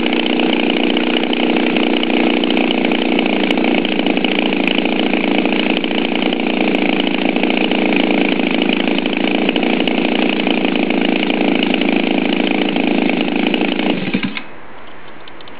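Turnigy 53cc flat-twin two-stroke model aircraft engine spinning a 22x10 wooden propeller, running steadily, then stopping abruptly about 14 seconds in. It is a new engine on its first run, not yet tuned or run in.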